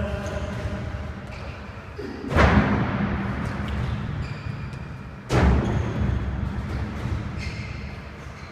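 Two heavy thuds about three seconds apart, about two seconds in and again about five seconds in, each dying away slowly in the echo of a large sports hall.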